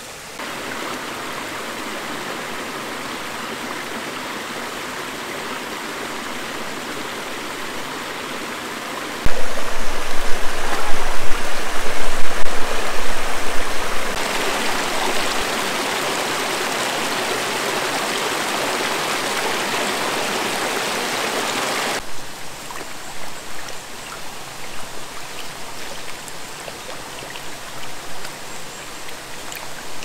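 Stream water rushing over rocks in a steady hiss whose level jumps abruptly several times. It is loudest, with a low rumble underneath, from about 9 to 15 seconds in, and flickers more unevenly near the end.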